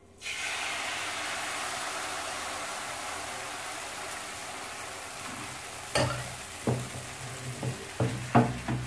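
Crêpe batter hitting a hot oiled non-stick frying pan: a sizzle starts suddenly the moment it is poured and slowly eases as the batter spreads. From about six seconds in, several sharp knocks as the pan is handled on the gas stove's grate.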